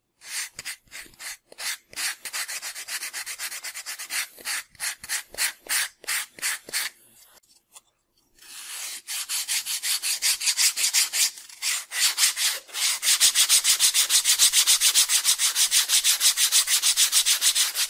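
Sandpaper on a sanding block rubbed over a foam-plastic model fuselage in quick, regular strokes, about four a second, smoothing the foam and dried glue at the seams. The strokes pause briefly about seven seconds in, then resume louder and steadier.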